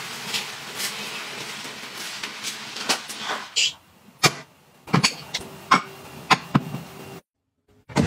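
Uncooked rice pouring from a plastic bag into a plastic rice storage bin, a steady grainy hiss of falling grains. Midway the lid is shut with a rustle and a sharp click, followed by several more sharp clicks and taps on the plastic container, and the sound cuts to silence near the end.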